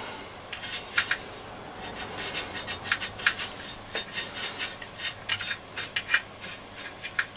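Small hard parts being handled: a run of irregular sharp clicks with rubbing and scraping between them, thickest in the middle stretch.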